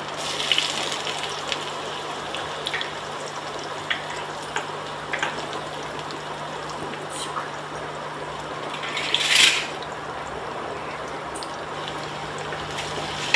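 Sliced onions frying in hot ghee in a stainless steel kadai: a steady sizzle with scattered small crackles and pops, and a brief louder hiss about nine seconds in.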